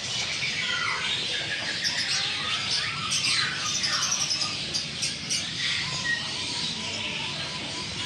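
A dense chorus of many caged birds chirping and squawking at once, with overlapping short calls that slide downward in pitch.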